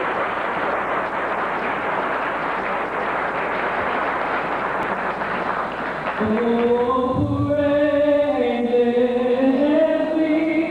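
A steady wash of crowd noise, then about six seconds in a male vocal group starts singing a cappella in close harmony, several voices moving together. The singing is louder than the crowd noise.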